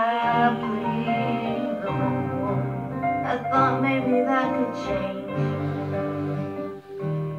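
A song playing: a solo sung vocal melody over piano accompaniment.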